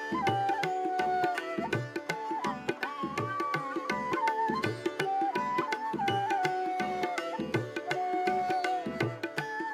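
Indian classical-style background music: a melody with notes that slide from one pitch to the next, over a steady drone and an even, low hand-drum beat.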